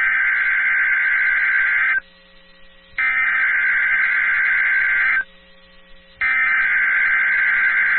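Emergency Alert System SAME header: three bursts of warbling digital data tones, each about two seconds long and a second apart, sent over NOAA Weather Radio to encode the alert that follows, here an AMBER child-abduction alert. A faint steady hum runs underneath.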